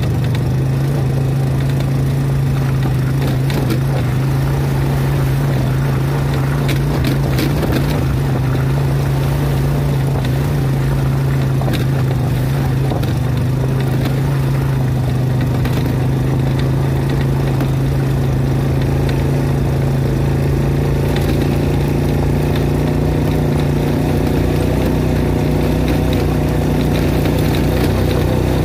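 ATV engine running at a steady, even pitch while riding along a rough dirt trail, with scattered brief knocks and rattles from bumps.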